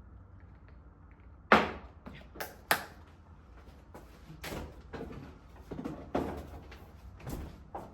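Irregular knocks and clatters of household objects being handled and set down. The loudest is a sharp knock about a second and a half in, followed by about a dozen lighter ones.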